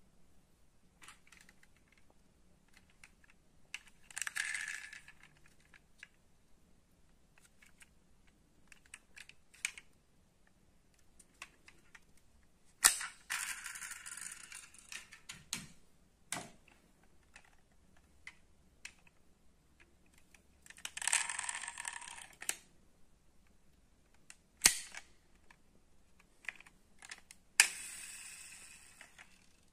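Die-cast metal toy cars handled on a wooden table: sharp clicks and knocks as they are picked up and set down. Several noisy stretches of a second or two occur as cars are moved across the wood.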